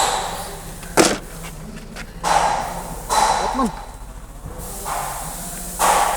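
A string of heavy knocks and bangs, five or so at uneven gaps, each fading quickly, over a low steady hum.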